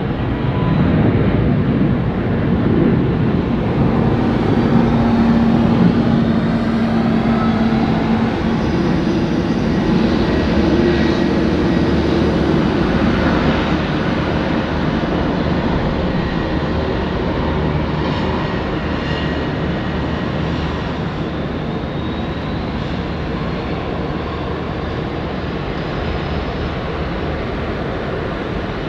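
Airliner engines at takeoff power, a loud steady roar that slowly fades as the aircraft climbs away.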